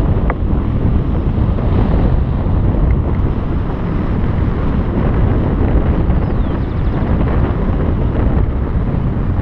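Strong wind blowing across the microphone, a steady loud rush of noise heaviest in the low end.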